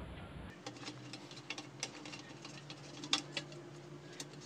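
Faint, irregular small clicks and ticks of a screwdriver turning the little screws that hold an RCA input socket to a metal amplifier back panel, the sharpest about three seconds in, over a faint steady hum.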